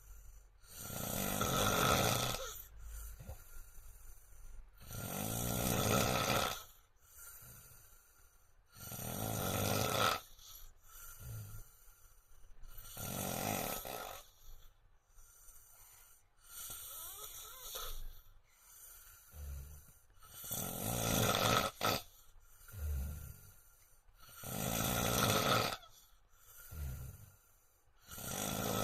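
A man snoring loudly in his sleep, one long snore about every four seconds, with quieter breathing between.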